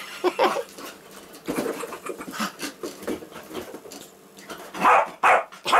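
A basset hound and a labradoodle play-fighting: bursts of growling and scuffling on bedding, with a few loud, short barks about five seconds in.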